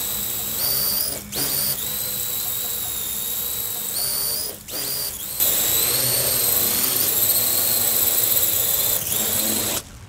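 Parrot AR.Drone 2.0 quadcopter's four electric motors and propellers running with a steady high whine. The whine drops out briefly twice and cuts off suddenly near the end as the motors stop.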